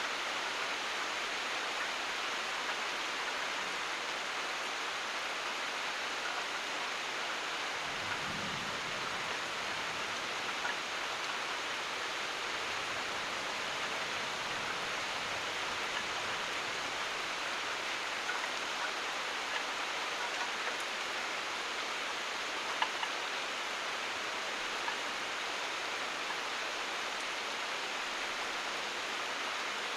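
Steady, even rain, with a few scattered louder drips.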